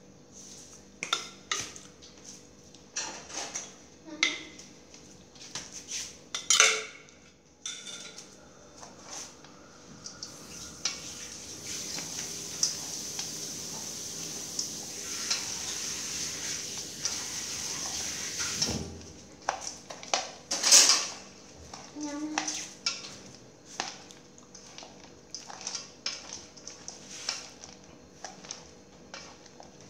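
A metal spoon clinks and scrapes against a stainless steel bowl as a shredded-vegetable salad is stirred. In the middle stretch there is a steady rustling hiss as the shredded ingredients are tossed by hand. After that come more scattered clinks and knocks against the bowl, the loudest about two-thirds of the way through.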